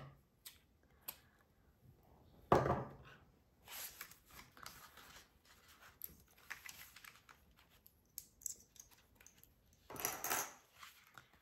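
Hands handling a hand-sewn block of paper pages: paper rustling with scattered clicks and clatters from black binder clips being taken off, and a quick riffle of the pages about ten seconds in.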